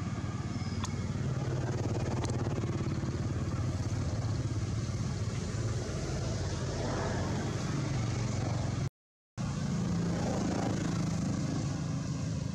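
Steady low hum of a motor vehicle engine running, with a brief total dropout about nine seconds in.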